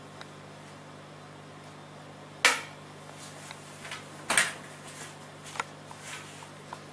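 Knocks and clatter from a small dome camera being picked up and handled: two sharp knocks about two and a half and four and a half seconds in, then lighter clicks and taps. A steady low electrical hum runs underneath.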